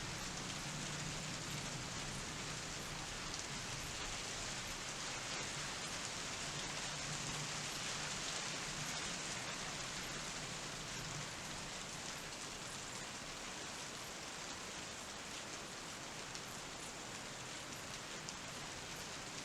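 Steady rain falling during a thunderstorm, a little heavier in the middle and easing slightly in the second half, with no thunder clap.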